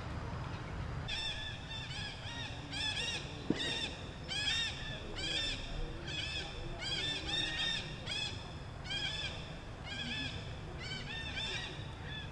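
A rapid series of short, high-pitched animal calls, several a second in bunches, starting about a second in and going on steadily. A single sharp click about three and a half seconds in.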